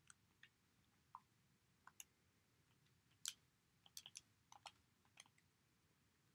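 Calculator keys being pressed in turn: faint, irregular clicks, more of them bunched between about three and five seconds in.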